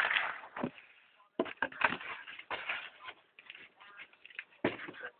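Cardboard shoe box being handled by hand: a string of short knocks, scrapes and crinkles as the box and its flaps are moved.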